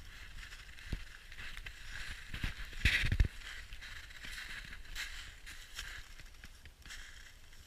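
Footsteps crunching through deep, hard-packed snow, roughly two steps a second, with a louder, heavier crunch and low thump about three seconds in.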